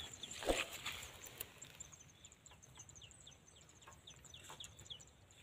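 Faint, repeated short, high, falling peeps from a bird, a few a second, with a dull thump about half a second in.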